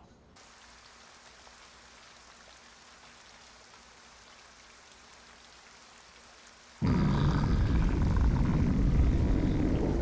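Anime stomach-growl sound effect: after a faint hiss, a loud, low rumbling growl starts suddenly about seven seconds in and keeps going.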